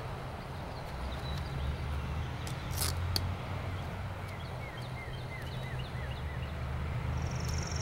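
Outdoor ambience: a steady low rumble with small birds chirping faintly, and a couple of short clicks about three seconds in as duct tape is pressed onto a wooden hive stand. Near the end a high, rapidly pulsing buzz sets in.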